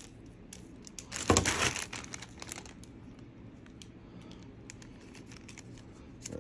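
Plastic toy train track pieces being handled and sorted. There is a louder rustle about a second in, then scattered light clicks and clacks of pieces knocking together.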